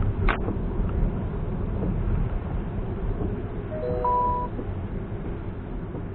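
Car driving through heavy rain, a steady rumble of tyres on the wet road and rain noise. There is a sharp click just after the start, and a short electronic beep of a few tones together about four seconds in.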